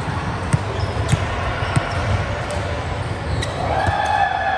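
A volleyball being struck or bounced: about six sharp thuds, roughly one every half second to a second. A steady held tone comes in near the end.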